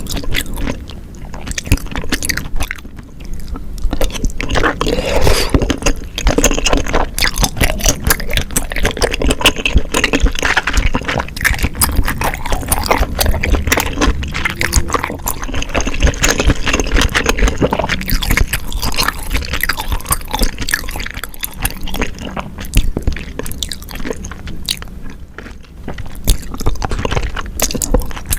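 Close-miked chewing of tteokbokki rice cakes in sauce: continuous sticky, wet mouth sounds with dense small clicks.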